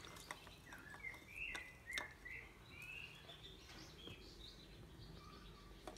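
Faint bird chirps in the background, short rising and falling calls repeated over a few seconds, with a few light clicks of a tool working at the engine's valve adjuster in the first two seconds.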